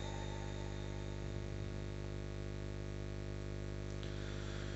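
Steady electrical hum and buzz from a public-address sound system, with a faint hiss and no voice.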